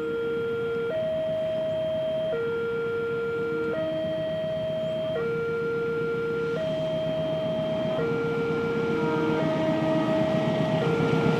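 Railway level-crossing warning alarm sounding, two tones alternating low and high about every second and a half, over a steady traffic and engine rumble that grows louder near the end.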